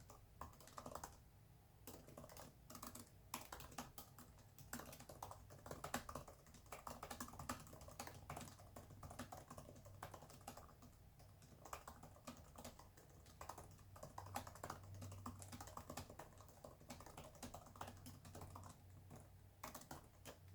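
Fast typing on a computer keyboard: a quick, uneven stream of key clicks with brief lulls, over a faint low hum.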